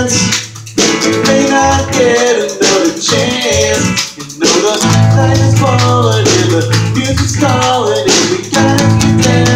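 Guitar music: a melody of sliding, bending notes over a held low note, with two short breaks in the playing.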